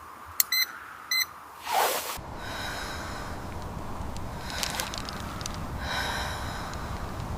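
Two short electronic beeps about half a second apart, then a whoosh about two seconds in, followed by a steady low rumbling noise.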